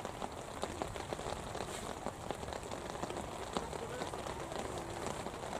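Steady rain falling, with many individual raindrops ticking close by.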